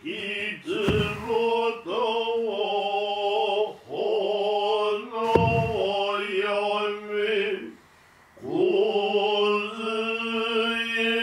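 Noh chanting (utai) by male voices: long held, slowly wavering lines sung in phrases with short breaks, and two sharp percussive strikes, one about a second in and one about midway.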